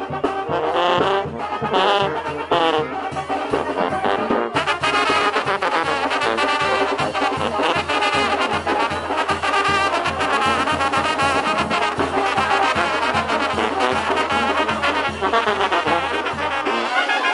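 Brass band playing lively dance music, trumpets and trombones over a steady beat, growing louder and brighter about four seconds in.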